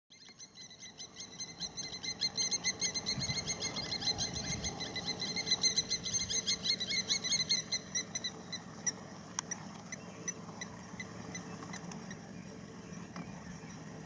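An animal's rapid, high-pitched chattering call: a long run of quick repeated notes that swells over the first few seconds, then thins out to scattered clicks after about eight seconds.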